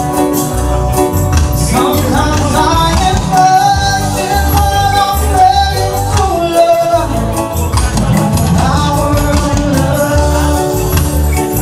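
Live reggae band playing, drums and keyboards over a steady low beat, with a male voice singing a drawn-out line from about two seconds in that holds one long note, then coming in again about eight seconds in.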